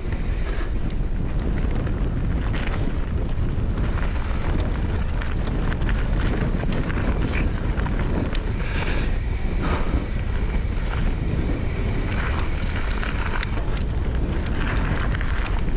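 Mountain bike running fast down a rough gravel track: steady wind buffeting on the microphone over the roar of the tyres, with rattles and clatters from the bike over loose stones.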